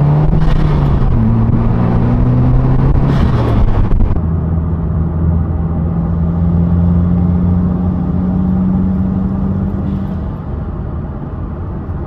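Turbocharged FA24 flat-four of a Subaru WRX with a Perrin turbo inlet, accelerating under boost, engine pitch rising, with a short rush of noise about three seconds in. It then settles into a steady drone at speed and quietens near the end as the throttle is lifted.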